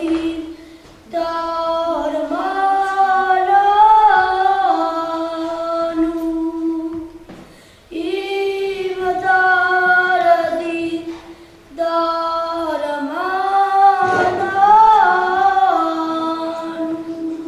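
A single high voice singing a slow unaccompanied melody in long held phrases, with short pauses for breath about a second in, around seven and a half seconds and around eleven and a half seconds.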